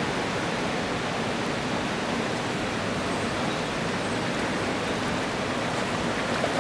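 Fast-flowing river rushing: a steady, even wash of water noise.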